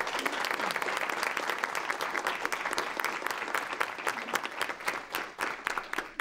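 Applause from a small group of people clapping, thinning out near the end to a few scattered claps.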